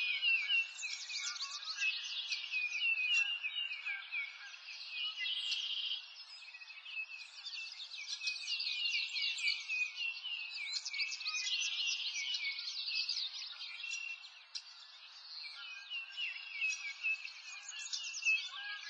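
Chorus of many small birds chirping and trilling, a dense run of quick high chirps that thins out briefly about six seconds in and again near fourteen seconds.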